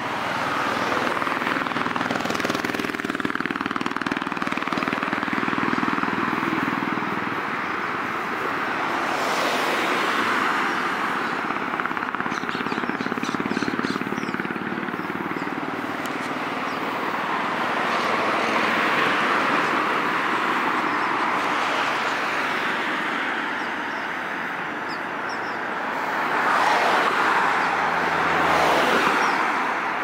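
Road traffic from a multi-lane city road: a continuous hum of tyres and engines, swelling and fading as cars pass one after another, with the loudest pass near the end.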